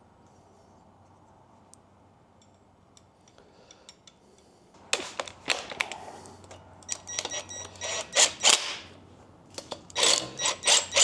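Faint clinks of small metal parts being handled. Then, from about five seconds in, a cordless driver runs in short clattering bursts, driving in the bolts of the roller-lifter spider in an engine block's lifter valley, with a thin high whine in its longer runs.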